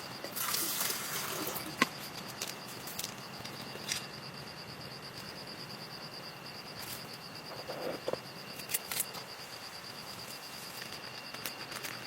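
Steady hiss of rain with scattered sharp taps and clicks, a rustling stretch early on, and a steady high-pitched trill throughout.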